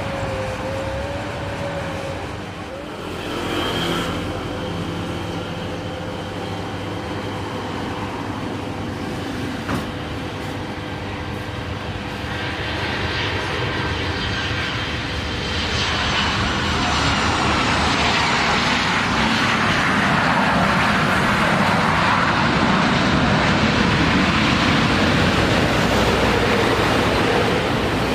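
Jet airliner's engines coming closer: a whine that rises and falls, then a broad engine noise that grows louder about halfway through and stays loud.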